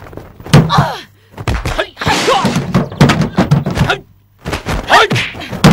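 Kung-fu fight sound effects: a rapid string of punch and kick thuds with swishing swings, mixed with the fighters' short shouts and grunts.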